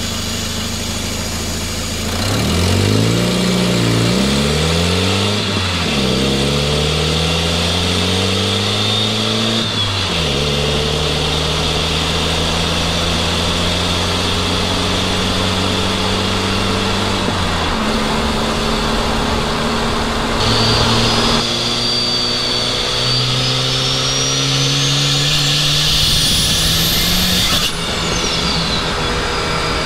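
Turbocharged car engine heard from inside the cabin, pulling through the gears: its pitch climbs and drops sharply at several gear changes, then holds steady for a stretch. Near the end a Holset turbocharger's whistle rises steeply for several seconds and cuts off suddenly as the throttle is lifted.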